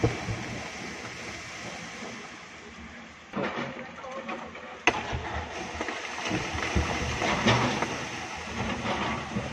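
Rock and earth pushed off a quarry cliff edge sliding down the face into the water below: a continuous rushing noise that grows louder about three and a half seconds in, with a sharp knock about five seconds in.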